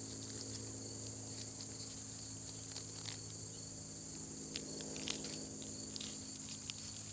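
Steady high-pitched chorus of insects, with a low steady hum underneath and a few faint clicks.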